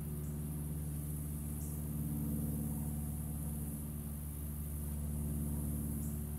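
A steady low engine hum at constant speed, with insects buzzing high over it.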